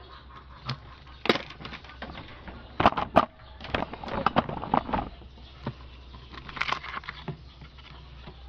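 Knocks, clicks and scrapes as the amplifier panel of a Hug amplified speaker is pulled out of its cabinet. The handling comes as a string of sharp knocks, loudest about three seconds in, over a steady low hum.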